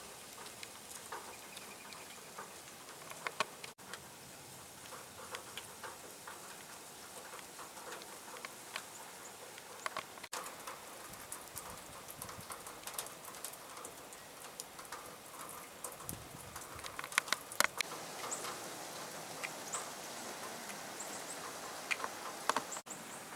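Melting snow dripping and pattering in irregular short ticks, thickest about two-thirds of the way through.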